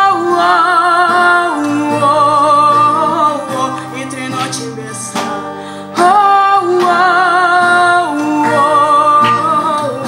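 A woman singing long held notes with vibrato to her own strummed acoustic guitar, in two phrases, the second starting about six seconds in.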